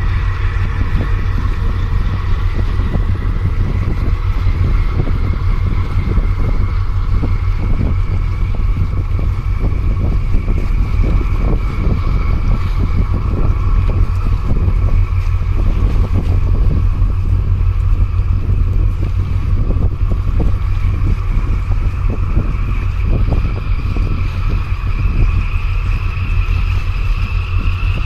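Wind buffeting the microphone in a heavy, fluttering low rumble, with small waves splashing against the concrete breakwater blocks. A steady whine slowly rises in pitch underneath.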